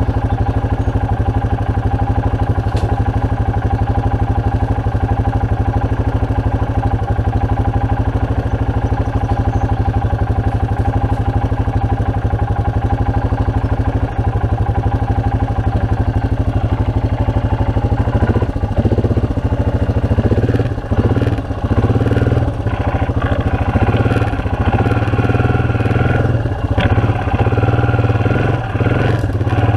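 A Honda four-wheeler's engine idling steadily. Irregular knocks and clatter join it in the last third.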